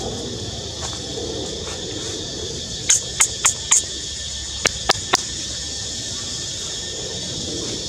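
Outdoor ambience with a steady high-pitched hiss. About three seconds in come four short sharp chirps in quick succession, then three quick clicks about a second later.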